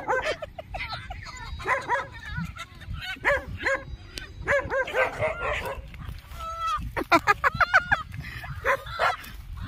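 Dog barking and yipping repeatedly in short calls, with a quick run of calls near the end.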